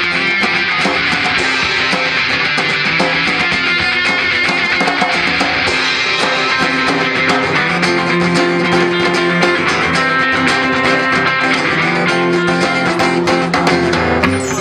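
A live band plays an instrumental passage of a rock song, with guitars and drums and no vocals.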